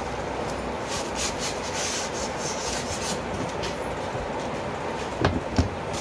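Expanded polystyrene (thermocol) packing rubbing and scraping against cardboard as it is pulled out of the box, hissy scrapes in the first half, then two knocks a little before the end.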